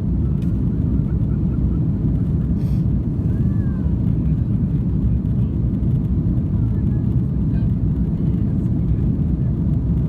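Airbus A330-300 cabin noise: a steady, deep rumble of the jet engines and airflow, even throughout.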